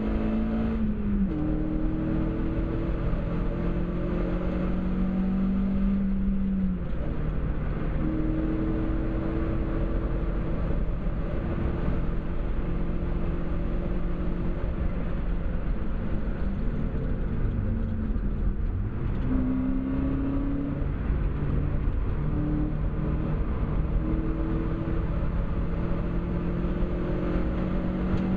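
Seat Cordoba Cupra's 2.0 16V four-cylinder engine (ABF), heard from inside the car, driven hard around a race track over tyre and wind noise. The engine note steps down at gear changes. About two-thirds in it falls low and then climbs again, as the car brakes for a corner and accelerates out.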